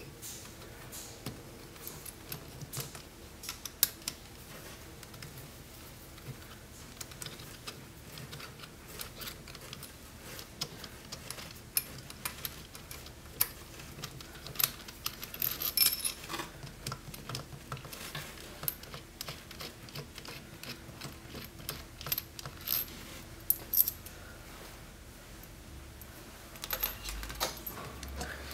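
Irregular small metal clicks, taps and scrapes as a hand tool turns out the two mounting screws of a solenoid valve on a pneumatic ball-valve actuator and the screws and valve are handled and set down.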